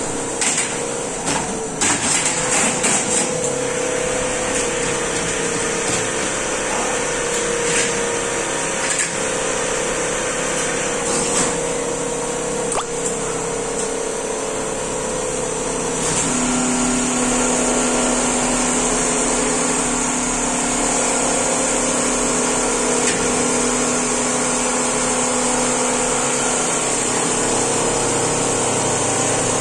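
Richpeace single-head computerized quilting machines running: a steady mechanical whirr from the stitching heads and carriage drives. There are a few sharp clicks and knocks in the first few seconds, and a lower steady tone joins about halfway through.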